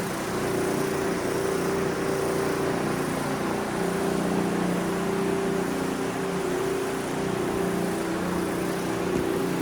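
Electric floor machine running steadily with a constant motor hum as it scrubs a cleaning product into tile to lift grout haze.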